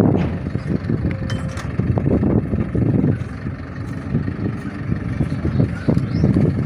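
A vehicle engine running, a low, uneven rumble.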